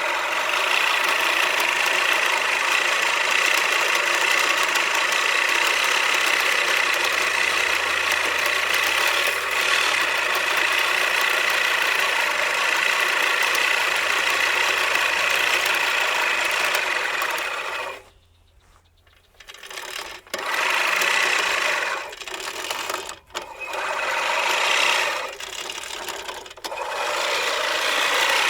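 Lawn mower engine running steadily, then cutting out for about a second and a half partway through and coming back in uneven surges with short dips.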